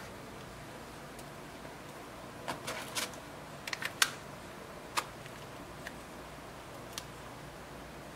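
A scattered run of small, sharp clicks and taps from a phone being pressed into a leather wallet case's hard plastic back cover and handled, the loudest about four seconds in.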